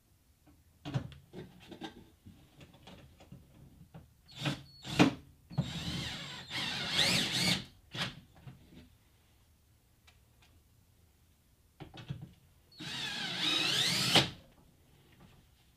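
Cordless drill driving screws into a car door, in two runs of about two seconds and a second and a half, the motor pitch wavering as the screws seat. Before them come scattered clicks and knocks of handling.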